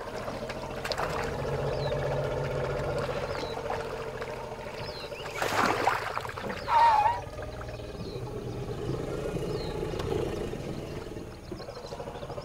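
African elephant calf drinking from a sand-filtered waterhole: water trickling and sloshing, with two short loud elephant calls around the middle, the second a wavering squeal.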